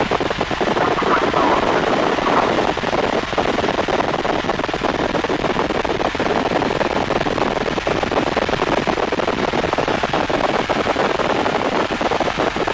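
Helicopter in flight heard from inside its cabin: the steady, rapid chop of the main rotor blades over the engine and airflow noise.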